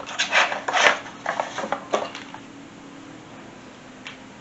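Handling noise: a quick run of rubbing, rustling scrapes for about two seconds, then only a faint steady hum.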